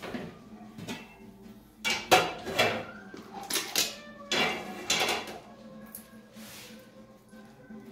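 A stainless steel lid is lifted off a cooking pot and handled, with several sharp metal-on-metal clanks and scrapes from about two seconds in, over about three seconds.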